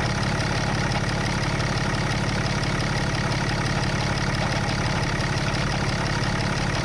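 6.7-litre Cummins turbo-diesel idling steadily with an even, rapid diesel clatter, its water pump failing and leaking with a pulley that jerks back and forth.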